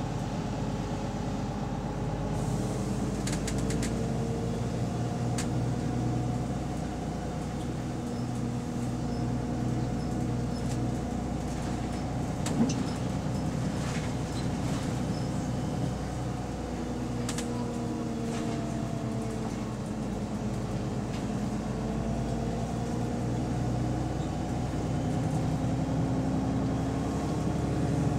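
A double-decker bus's engine and drivetrain running while it drives, heard from the lower-deck cabin, its pitch slowly falling and rising as the bus eases off and picks up speed, with light rattles from the cabin. There is one sharp knock about halfway through.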